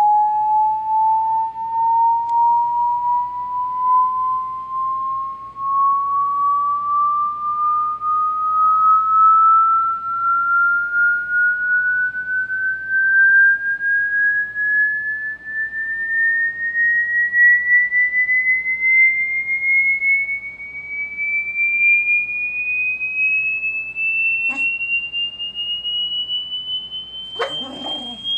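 Hearing-test sine-tone sweep played through iMac computer speakers: one pure tone rising slowly and steadily in pitch, from a mid pitch to a high, piercing one. A faint click comes near the end, and a short scuffing noise just before the end.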